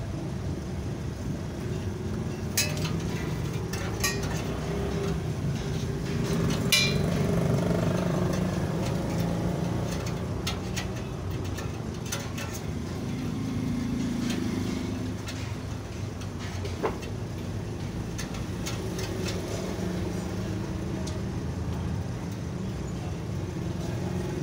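Steady low rumble of road traffic, with a handful of sharp clicks and clinks as chrome crash-guard tubes and tape are handled.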